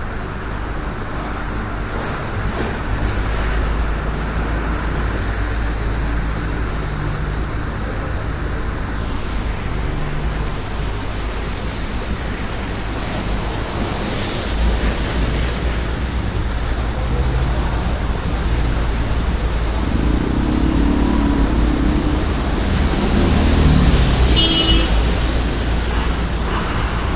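Swollen floodwater rushing past in a steady roar, with a low rumble of wind on the microphone.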